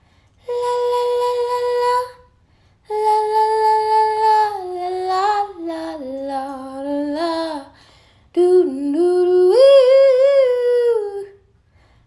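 A woman singing wordless notes without accompaniment: a held note, then a long phrase stepping down in pitch, then after a short pause a phrase climbing back up with a wavering, vibrato-like ending.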